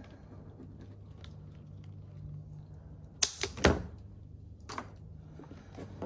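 Handling noise from plastic air-line tubing and fittings being worked into an air-suspension control panel: a few sharp clicks and knocks, the loudest pair a little past halfway, over a low steady hum.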